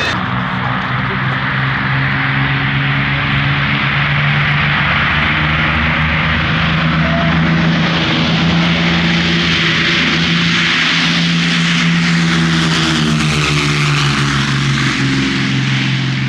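Propeller-driven warbird aircraft flying past with its engine running steadily. The rushing noise swells through the middle, and the engine drone drops slightly in pitch near the end as the aircraft passes.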